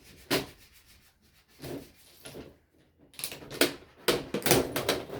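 Plastic and metal parts of an old Sharp TV being handled and pulled apart: rubbing and scraping with sharp clicks, a few separate strokes at first, then a busier run of scraping and clatter from about three seconds in.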